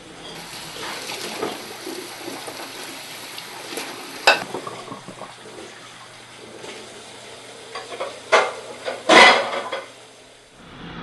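Dishes and cutlery clattering, with a sharp knock about four seconds in and louder knocks of crockery near the end.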